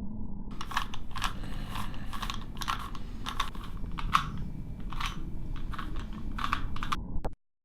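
A plastic Rubik's cube being twisted by hand: irregular clicking turns, two or three a second, over a steady low hum. The sound cuts off abruptly near the end.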